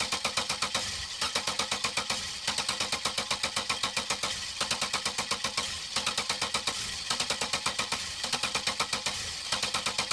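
A car's starter being tried again and again in runs of about a second, with a rapid even chatter of about eight to nine pulses a second, and the engine not catching: a car that won't start.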